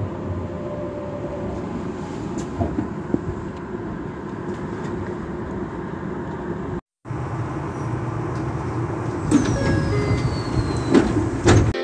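Train running noise, steady with a low hum, cut off for a moment about seven seconds in. In the last few seconds a high whine falls in pitch and a few sharp clicks sound.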